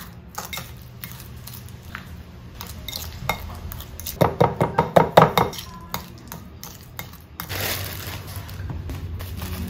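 Metal fork clinking and scraping against a ceramic bowl while mashing boiled eggs with mayonnaise. A fast run of stirring strokes about four to five seconds in is the loudest part.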